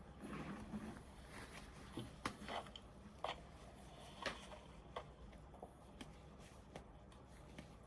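Faint, sparse clicks of a computer keyboard and mouse, struck at an irregular pace a second or so apart, with a soft rustle of movement near the start.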